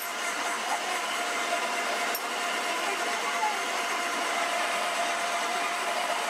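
Steady workshop din: a continuous hiss and hum of running machinery with a faint steady tone through it, and a light click about two seconds in.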